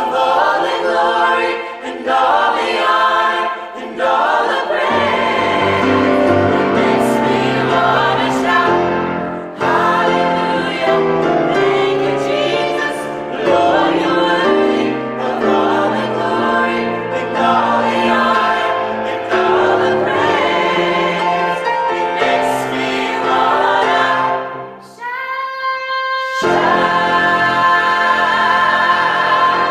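Vocal ensemble singing a gospel song in harmony; lower parts come in about five seconds in, and near the end the singers hold a long final chord.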